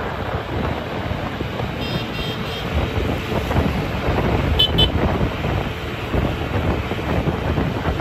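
JCB 3DX backhoe loader's diesel engine running as it drives along the road, with tyre and road noise and wind on the microphone. A short run of high toots comes about two seconds in, and two quick beeps about halfway through.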